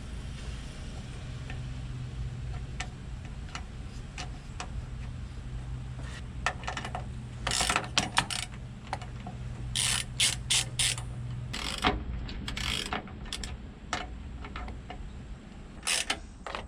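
Socket ratchet wrench clicking in short irregular bursts as mounting bolts are tightened down, the busiest stretch in the second half.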